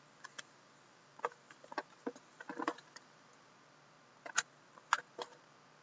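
Two sealed cardboard hockey-card boxes being handled and turned around on a table: scattered light taps and clicks of cardboard, irregular and quiet.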